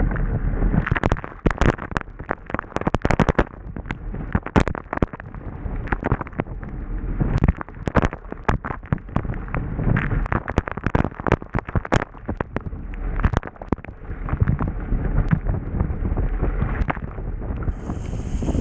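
Spray thrown up by a Hobie Bravo catamaran's hull spattering against the camera housing at speed: a rapid, irregular crackle of sharp hits over a steady low rush of wind and water.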